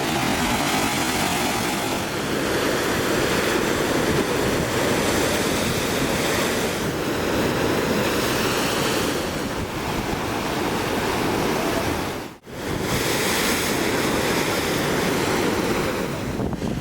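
Heavy monsoon sea waves surging and crashing against a jetty, a continuous dense wash of surf noise that swells and eases. The sound cuts out abruptly for an instant about twelve seconds in, then resumes.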